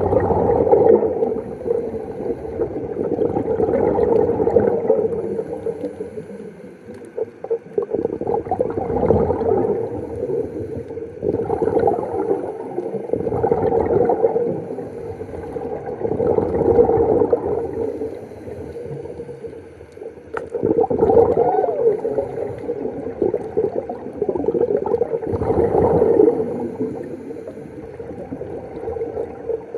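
Underwater, a scuba diver's regulator exhaust: exhaled air bubbling out in gurgling bursts every four to five seconds, with quieter stretches between breaths.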